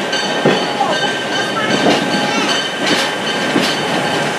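Excursion train rolling along, with a steady rumble of wheels on rail and irregular clacks as the wheels pass over rail joints.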